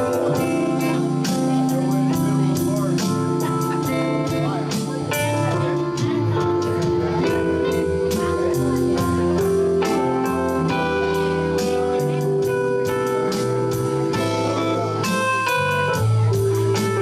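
Live rock band playing an R&B rock song: electric guitar over a steady drum beat, bass and keyboards.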